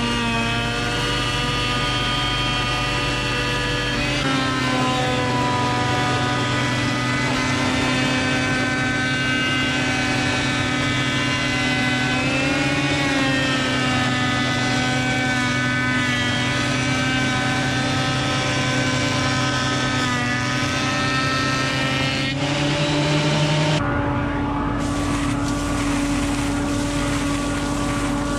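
Metabo DH 330 benchtop thickness planer running steadily as a rough-sawn board is planed down to thickness, its motor whine shifting in pitch a few times.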